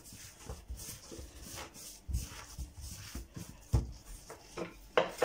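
Hands kneading and rolling soft dough on a floured stone countertop: irregular dull thumps and rubbing as the dough is pressed and pushed along the counter, with a sharper knock about five seconds in.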